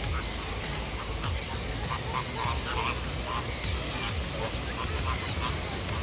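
Birds calling: many short repeated calls with higher chirps above them, over a steady low rumble.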